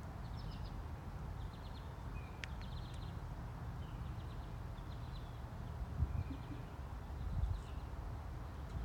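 Low wind rumble on the microphone, swelling a little stronger twice in the second half. Behind it, a small bird gives short, quick chirping trills, each ending in a brief falling note, repeating every second or so.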